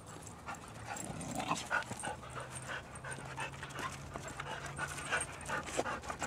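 Two pit bull mix dogs, a black pit bull–Rottweiler and a white pit bull–American bulldog puppy, panting and scuffling as they play tug-of-war over a rubber tire toy. A low steady tone runs from about a second in until near the end.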